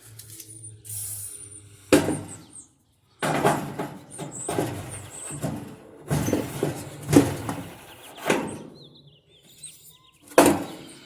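Hands working on a dryer's drum support roller parts: a sharp knock about two seconds in, then stretches of rubbing and scraping broken by several more knocks, with a last sharp knock near the end.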